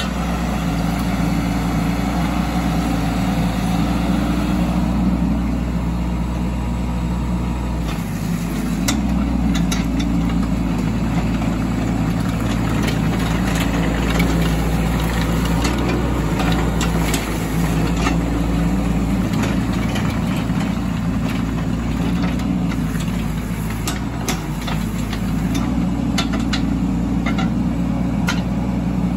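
Doosan DX10Z micro excavator's diesel engine running steadily while the machine is worked, its note shifting about eight seconds in, with scattered clicks and knocks.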